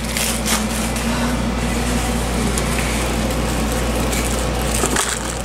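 Steady low hum and hiss of background noise, with a few light clicks in the first second.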